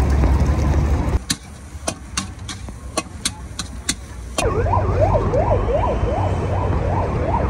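A steady low rumble. Partway through it drops away, and a metal spatula strikes and scrapes an iron wok in sharp clicks, about three a second. The rumble then returns with a siren wailing up and down rapidly and repeatedly.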